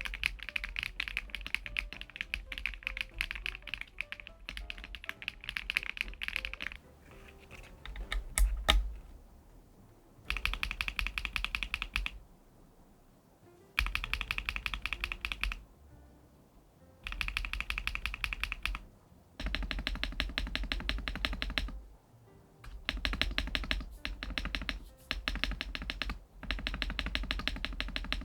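Fast typing on a LUMINKEY LUMINO75, a gasket-mounted aluminium-case mechanical keyboard with PBT keycaps: a dense run of key clicks, then repeated bursts of a couple of seconds each with short pauses between. Background music plays underneath, and a brief louder swell comes about eight seconds in.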